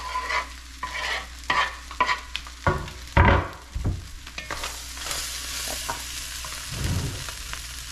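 Wooden spatula scraping chopped raw shrimp off a wooden cutting board into a pot of corn browning in hot bacon grease, several quick scrapes, with a loud thump a little over three seconds in. After that comes steady sizzling as the shrimp fry in the grease.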